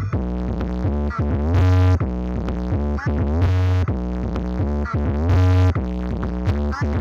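Electronic music with a heavy, steady bass line and synthesizer chords that change every half second or so.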